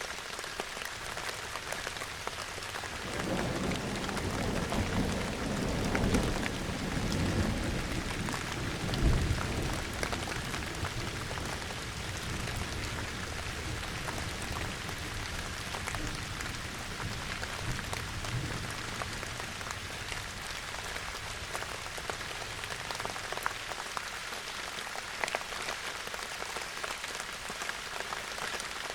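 Steady rain falling, with a roll of distant thunder that swells about three seconds in, peaks a few seconds later and dies away.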